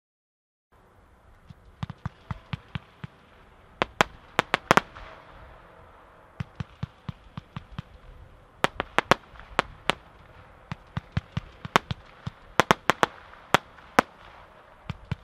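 PFX5007 49-shot crossette cake firing, starting about a second in: many sharp cracks and pops in irregular rapid clusters as the shots go up and the crossette stars split.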